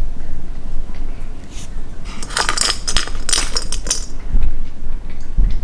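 Quick light clinking and jingling lasting about two seconds in the middle, from a kitten's plastic track-ball cat toy being played with, with a couple of soft thumps near the end.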